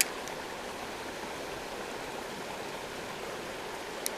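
Creek water running steadily, with a sharp click right at the start and a fainter click near the end.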